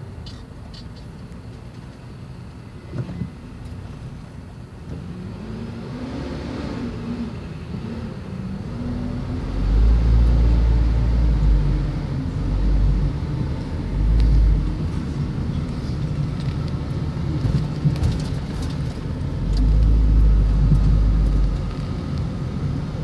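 Vehicle engine and road noise heard from inside a moving vehicle's cab, with a wavering rise in engine pitch about six seconds in and deep rumbling surges around ten seconds, briefly near fourteen seconds, and again near twenty seconds.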